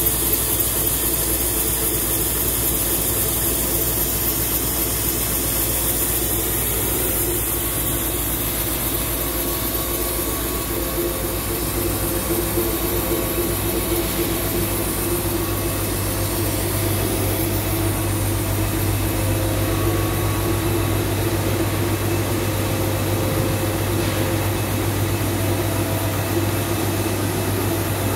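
CNC notching lathe running with a steady machine hum and drone, without distinct cutting knocks; the low hum grows stronger about eleven seconds in.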